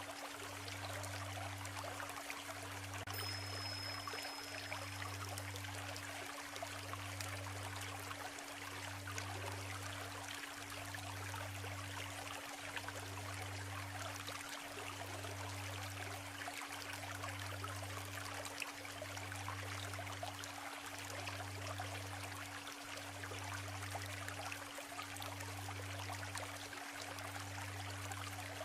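Isuzu River stream babbling steadily, under a steady low hum and a deeper tone that swells in even pulses about every two seconds. A brief high whistle sounds about three seconds in.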